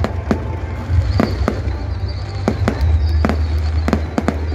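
Aerial firework shells bursting overhead in a string of about nine sharp, irregular bangs, over a steady low rumble.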